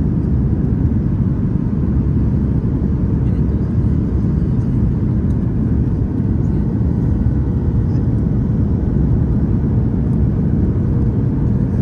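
Steady low rumble of airliner cabin noise inside a Boeing 737 MAX 8 on approach with flaps extended, heard from a window seat over the wing, with a faint steady hum running through it.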